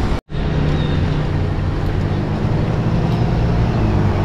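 A steady low-pitched hum, like a running motor or vehicle, over general street noise. It drops out briefly just after the start.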